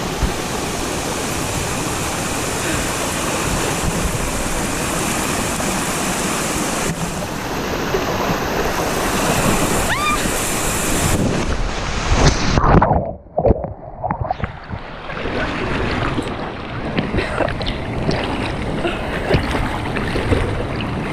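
Rushing river water pouring down a natural rock water slide, with splashing. A loud splash comes about twelve seconds in. Right after it the sound turns muffled for a couple of seconds before the rushing water returns.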